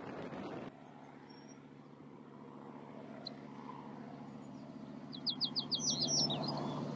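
A bird in a marsh sings a quick run of about seven short high notes, about five seconds in, then a few more, over a steady low hum. Under a second in, louder noise from the preceding ferry shot cuts off.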